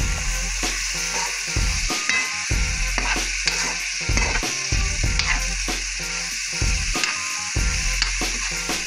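Brussels sprouts and yellow squash sizzling in a nonstick frying pan while a metal spoon stirs and turns them, with scattered clicks and scrapes of the spoon against the pan.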